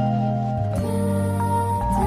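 Soft, gentle background music with sustained notes changing every half second or so.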